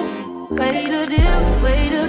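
Background song with a singing voice over deep bass notes that slide down in pitch, a strong one a little after a second in.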